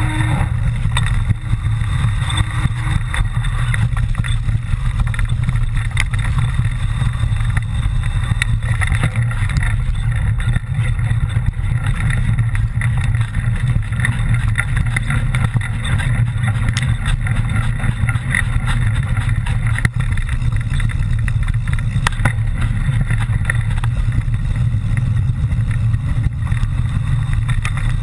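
Steady, loud low rumble of wind on a camera microphone during a mountain-bike descent, broken by frequent small knocks and rattles from the bike on rough ground.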